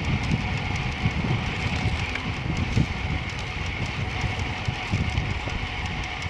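Wind buffeting a moving rider's microphone, a steady low rumble, over the steady hiss of tyres rolling on pavement, with faint light ticks throughout.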